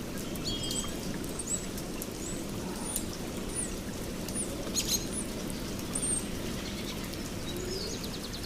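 Steady rain, with birds chirping over it in short, high, repeated notes.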